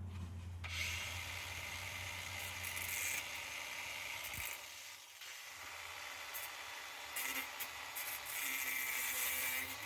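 Metal plumber's tape (perforated strapping) being handled and cut, a scratchy, high-pitched scraping with several brief louder bursts.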